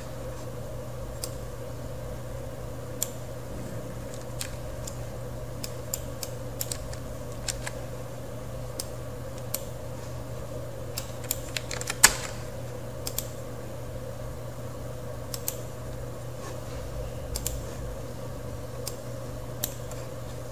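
Scattered sharp clicks of a computer mouse and keyboard, one every second or two with a quick cluster around the middle, over a steady low hum.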